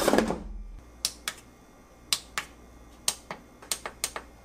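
An air fryer basket is pushed shut at the start. Then the buttons on the Ninja air fryer's control panel are pressed to set the cooking time and temperature, giving about eight sharp clicks, mostly in pairs.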